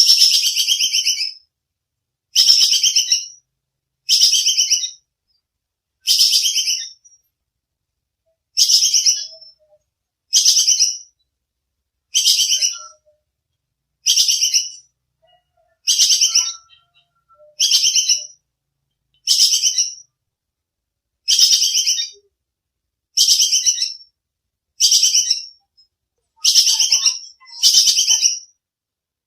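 Tupai kekes squirrel calling: a sharp, rapid chattering call of about a second, repeated over and over about every two seconds.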